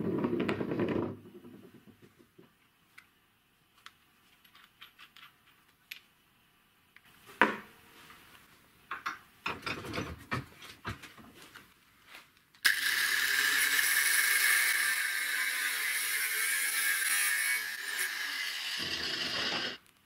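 A small metal cylinder fitting spins and rattles on a wooden workbench, then light metal clicks and a knock as it is handled and clamped in a steel bench vise. About thirteen seconds in, an angle grinder grinds metal with a loud, steady whine and hiss, cutting off suddenly near the end.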